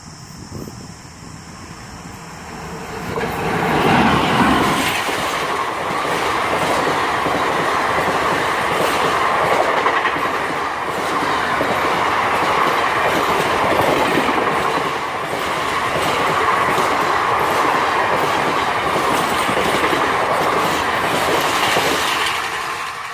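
Indian Railways express train passing close by at full line speed, about 110 km/h. The WAP-4 electric locomotive's approach builds and goes by about four seconds in, then the long rake of coaches follows with a steady rumble and a rapid clickety-clack of wheels over the rail joints, beginning to fade near the end.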